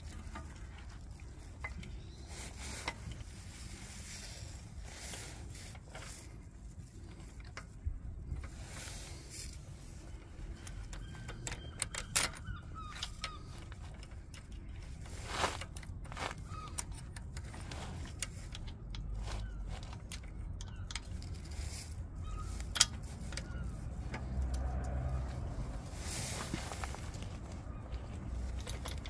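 Scattered light metallic clicks and taps as a replacement oil pump is handled and pressed into place against a Harley-Davidson Sportster's engine case, over a steady low background rumble.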